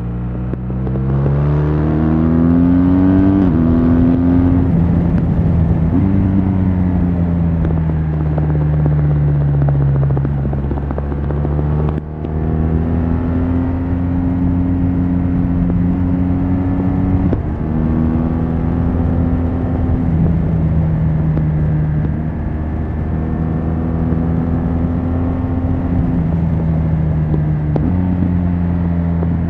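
BMW R1200GS LC's stock exhaust, its boxer twin engine under way: the note climbs over the first few seconds, drops at a gear change, sinks slowly as the bike eases off, then holds steady with several sudden steps in pitch from shifts and throttle changes.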